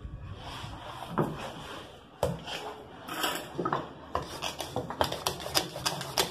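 Bread dough being worked on a granite countertop: a few separate knocks as dough is set down, then from about four seconds in a wooden rolling pin rolling the dough against the stone with quick clicks and taps.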